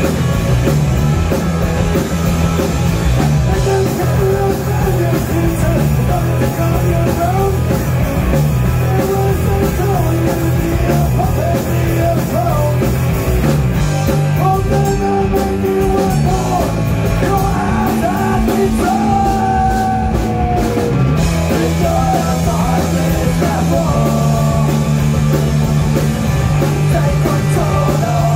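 Rock band playing live: electric guitar, electric bass and drums, with a male lead vocal over held bass notes that change every few seconds.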